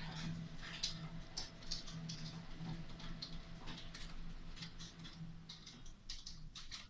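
Light irregular clicks and taps, about two or three a second, over a faint steady low hum.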